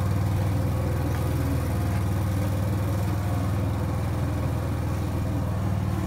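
Engine of a Cormidi C85 tracked dumper with self-loading concrete mixer running at a steady speed, a low even drone that doesn't change.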